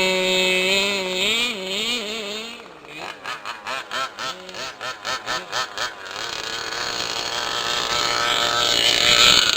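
Small two-stroke engine of a gas-powered RC car. It runs at a high steady pitch that then wavers, is blipped in short throttle pulses about three times a second, and near the end speeds up with rising pitch and loudness.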